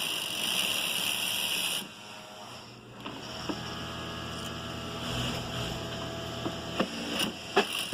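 Sunstar KM757 BL industrial lockstitch sewing machine running steadily. Its sound drops for about a second around two seconds in, then picks up again with a steady whine, and there are a few sharp clicks near the end.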